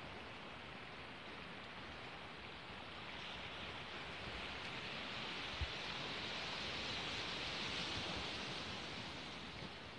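Sea surf on a pebble beach: a steady wash that swells for several seconds and then eases off. One soft knock about halfway through.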